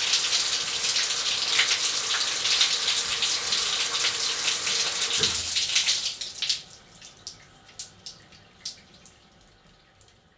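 Shower spray running steadily, stopping abruptly about six seconds in and leaving scattered drips that fade away.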